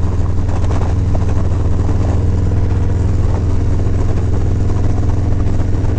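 2018 Harley-Davidson Softail's Milwaukee-Eight V-twin engine running steadily at cruising speed, with a deep, even drone and wind rushing past the rider.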